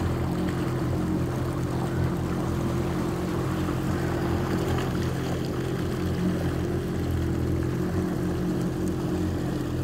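Personal watercraft engine running steadily, a droning hum that holds one pitch without revving, with water rushing underneath.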